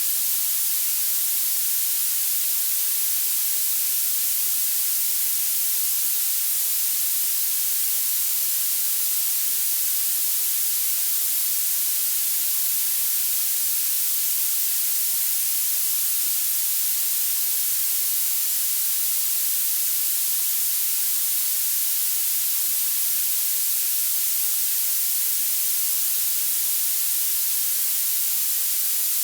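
Generated violet noise: a steady, unbroken high-pitched hiss, weighted strongly toward the top of the range, with little low end.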